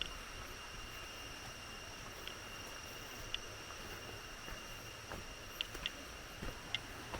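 Forest insects giving a steady, unbroken high-pitched trill, with a few short sharp ticks scattered through it.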